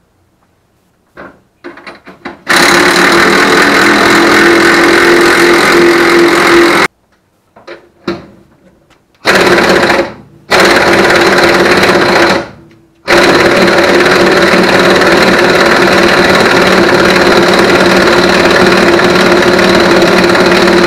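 Pneumatic impact wrench hammering as it runs down the threaded shaft of a spring compressor, compressing a front coil spring. It runs in four bursts: a long one a few seconds in, two short ones close together, and a last one of about eight seconds.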